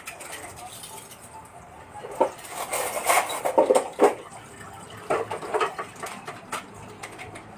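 Dishes and a pot being washed and handled at a kitchen sink: clinking and clattering with splashing water, in two busy spells, the first about two seconds in and the second about five seconds in.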